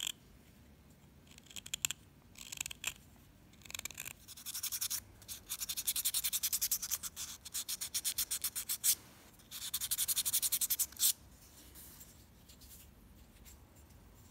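A knife blade scrapes inside a wooden pipe bowl in a few short cuts. Then sandpaper is rubbed on the stick-wood bowl in rapid back-and-forth strokes, in two long runs that stop about eleven seconds in.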